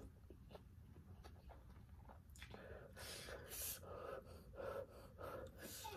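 A woman puffing and sucking air through pursed lips against the burn of chili, in short faint breaths about two a second, starting about two seconds in.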